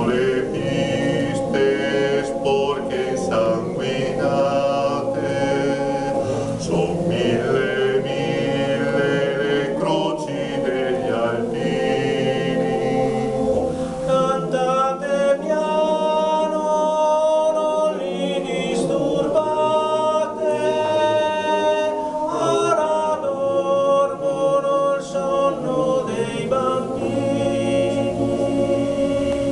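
Male voice choir singing a cappella in several parts, holding sustained chords phrase by phrase with brief breaks between phrases.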